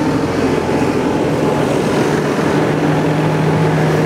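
Vehicle engine running steadily at constant speed, a low even drone.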